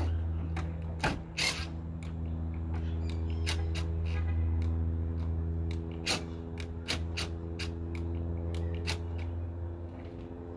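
Irregular sharp clicks and creaks as the headlight aim adjuster on a Jeep Grand Cherokee WJ is turned with a cordless drill-driver to lower the beam, over a steady low hum.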